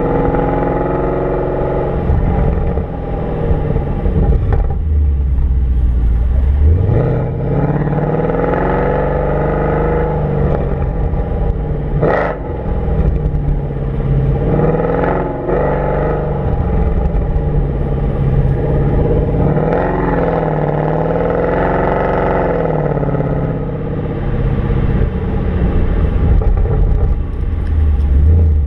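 Mercedes-AMG C63 engine running under way, its pitch climbing and dropping several times as the car accelerates, shifts and slows, over steady road noise. There is one short sharp knock near the middle.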